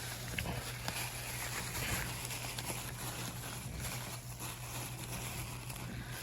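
Faint rustling and scattered light clicks of a parts package being handled and unwrapped, over a steady low hum.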